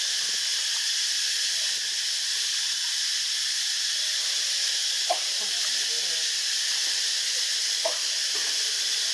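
Steady high-pitched hiss, with two faint short clicks about five and eight seconds in.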